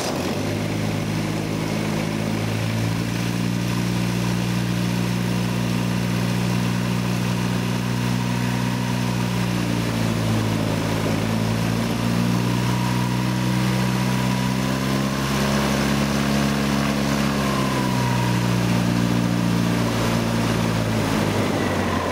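Viking Aircraft engine, a Honda-based four-cylinder, running steadily on its first start and turning the propeller, its speed dipping and rising slightly a few times around the middle.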